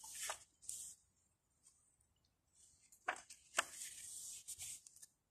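Pages of a book being leafed through by hand: quick papery rustles and flicks, in one burst at the start and another from about three seconds in, with two sharp page snaps.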